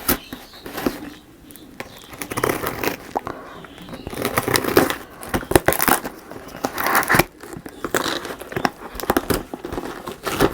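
Tight motherboard packaging being torn open and crinkled by hand: irregular ripping and crackling with sharp snaps.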